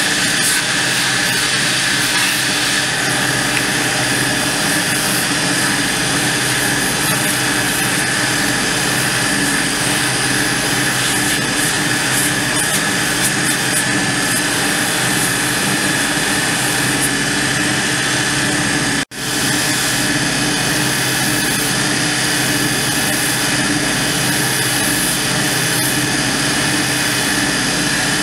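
Cobbler's shoe-finishing machine running steadily, its abrasive belt drum sanding a black rubber sole piece pressed against it. A loud, even whir with a steady high whine, broken by a momentary dropout about two-thirds through.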